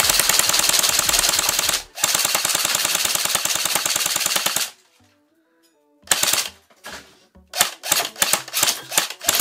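Airsoft gun firing long full-auto bursts: two rapid strings of shots with a brief break near 2 s. After about a second of quiet, shorter, irregular bursts follow.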